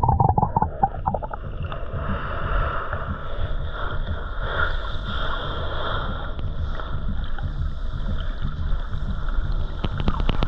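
Canoe out on the water: water sloshing and splashing around the hull as it is paddled, with wind rumbling on the microphone.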